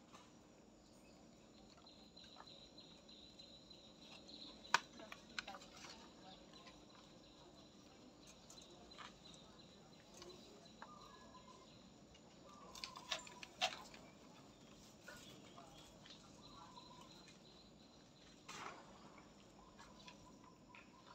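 Quiet outdoor ambience: a faint steady high tone and short chirps, broken by a few sharp clicks, the loudest about five seconds in and a small cluster about two-thirds through.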